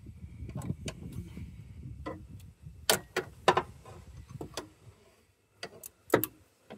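A wrench working on the water pump pulley bolts: a handful of sharp metallic clicks and knocks as it is fitted and the bolts are loosened, the loudest about three seconds in. Low handling noise runs under the first half.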